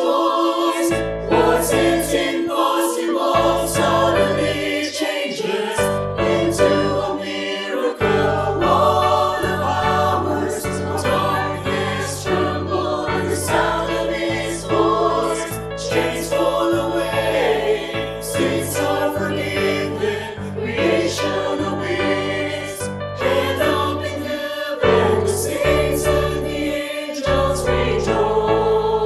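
Church choir singing a Christian worship song in parts over instrumental accompaniment.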